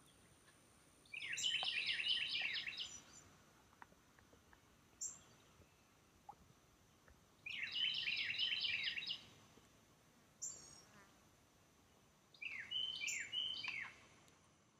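A songbird singing: three song phrases about five seconds apart, each a rapid run of repeated down-slurred notes lasting one to two seconds. Single short, sharp call notes sound between the phrases, over quiet background noise.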